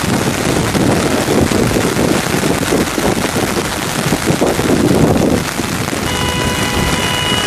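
Steady rain beating on an umbrella overhead, with a low rumble for the first five seconds. About six seconds in, a car horn sounds one steady blast that lasts just under two seconds.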